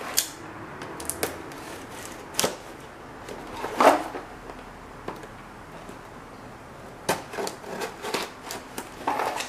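Small cardboard box handled and cut open with a folding pocket knife: scattered scrapes, taps and clicks of blade on tape and cardboard, the loudest about four seconds in and a quick cluster near the end.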